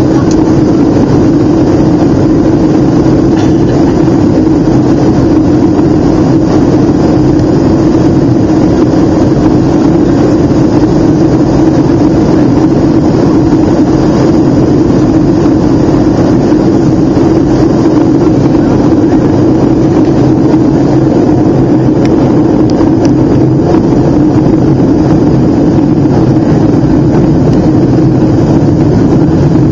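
Steady cabin noise inside a Boeing 757 airliner in flight: the jet engines' drone and rushing airflow, with a steady hum, unchanging throughout.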